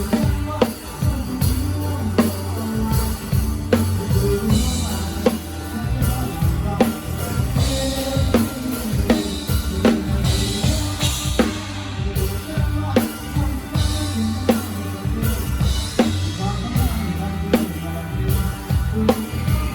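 A live drum kit playing a steady beat with the band, kick drum, snare and cymbals up front, and bass guitar notes underneath.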